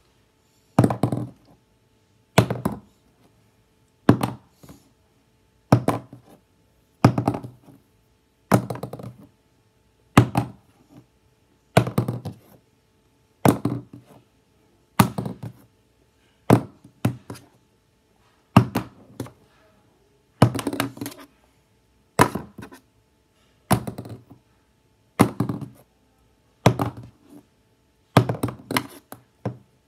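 A plastic Sharpie highlighter being flipped over and over, each landing a thunk with a short clatter, about one every one and a half to two seconds; some landings bounce and hit twice.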